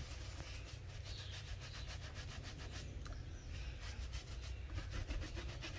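Scrubbing a wet mesh sneaker with soapy water: a steady run of quick rubbing strokes against the mesh.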